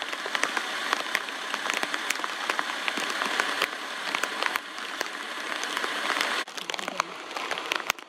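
Rain pattering on forest foliage: a steady hiss dotted with many sharp drop ticks. The hiss falls away abruptly about six and a half seconds in, leaving scattered ticks.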